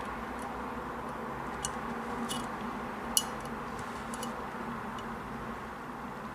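A handful of light, sharp clicks and taps of small steel revolver parts and tools being handled during disassembly, the sharpest about three seconds in, over a steady low hum.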